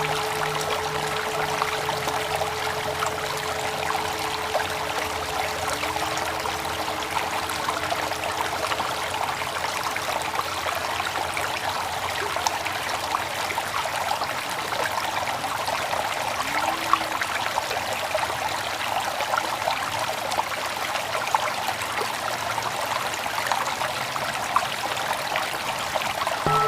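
Flowing stream water, an even rushing and trickling sound. The held tones of the background music die away just as it begins.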